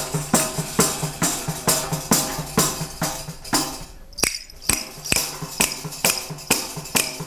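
Tamburello, the Gargano frame drum with metal jingles, beating a steady tarantella rhythm of a little over two strokes a second, jingles rattling on each stroke, with wooden castanets clacking along. The beat breaks off briefly about four seconds in, then picks up again.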